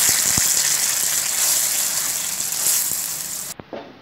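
Masala paste thinned with a little water sizzling loudly in a hot pan as a wooden spatula stirs it. The steady hiss cuts off suddenly about three and a half seconds in, leaving a few soft spatula scrapes against the pan.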